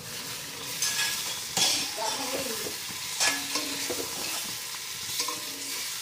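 Flat metal spatula scraping and stirring prawns through a thick masala in a small kadai, with the oil sizzling underneath. A few louder scrapes stand out, the loudest about one and a half and three seconds in.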